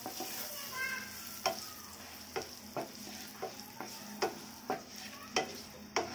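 Wooden spatula stirring sliced onions, dried red chillies and bay leaves in sizzling mustard oil in a frying pan: a steady sizzle with sharp scrapes and knocks of the spatula against the pan, about twice a second from a second or so in.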